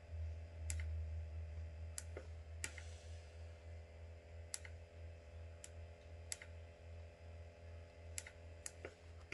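A few faint, sharp clicks at irregular intervals over a low, steady hum.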